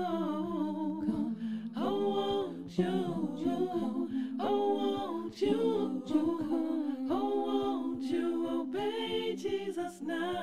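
A cappella voices singing and humming a melody in phrases, with no instruments, the close of a gospel theme song.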